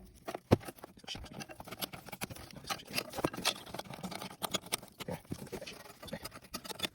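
Plastic dash trim of a 2005–09 Ford Mustang being handled and pressed back into place around the radio: irregular scratching, rubbing and small clicks as its clips are seated, with one sharp click about half a second in.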